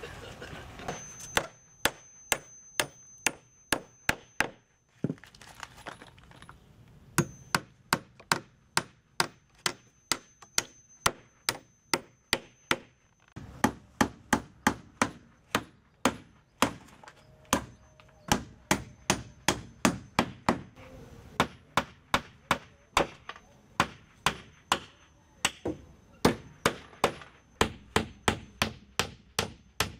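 Hammer striking wooden deck planks: runs of sharp blows, about two a second, broken by short pauses.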